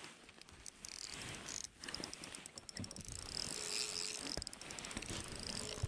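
A spinning reel being worked against a heavy fish, giving rapid, even clicking followed by a steady high whirring hiss as line is taken and reeled.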